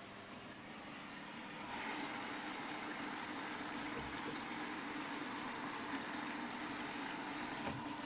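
Luxor WM 1042 front-loading washing machine filling: water from the inlet hisses steadily through the detergent dispenser drawer, louder from about two seconds in. A sharp knock at the very end as the plastic drawer is pushed shut.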